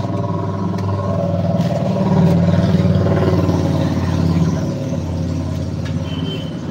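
Motor vehicle engine running, growing louder for a couple of seconds in the middle and then easing off, as a vehicle passes or revs.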